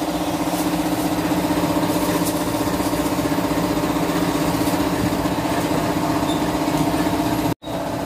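Steady hum of tofu-making machinery running, a motor at one constant pitch. It cuts off abruptly near the end.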